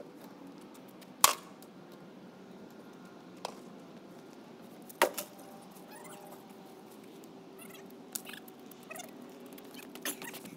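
A push broom sweeping concrete, with faint scratching and a few sharp knocks and clicks. The loudest knock comes a little over a second in, and lighter clicks follow near the end.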